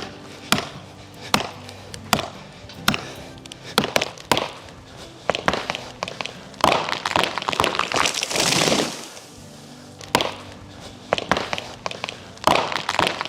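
A run of sharp blows on wood, one every half second to a second, like an axe or hammer striking a trunk, then two longer rough noisy stretches about halfway and near the end, over background music.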